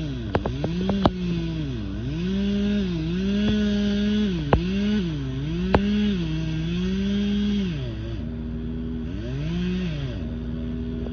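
Chainsaw cutting the notch in a large spruce trunk. Its engine note repeatedly drops under load and climbs back, about once every second or so, as the bar is worked into the wood. A few sharp knocks come in the first half.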